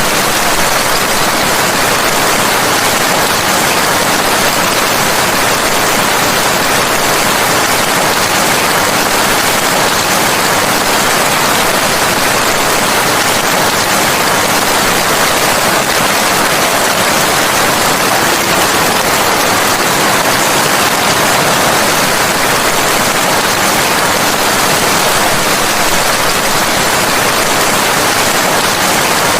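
Steady heavy rain: a dense, unbroken hiss with no single drops or pauses standing out.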